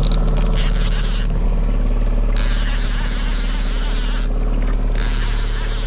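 Boat's outboard motor running steadily at trolling speed, a constant low hum, with a high hiss over it that cuts out twice for a moment.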